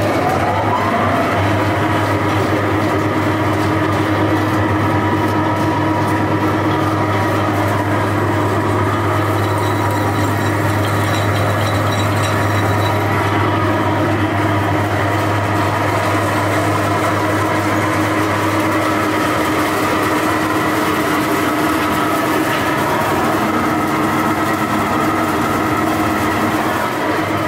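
Weiler 878AG heavy-duty grinder running under its electric motor drive. Its whine rises over the first second as it comes up to speed, then settles into a steady low hum with a constant whine above it.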